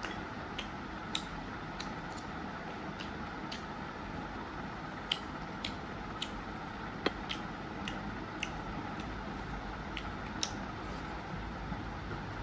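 Eating sounds: irregular short, sharp clicks and smacks, one or two a second, as rice and pork blood roast are eaten by hand from a metal plate, over a steady low background noise.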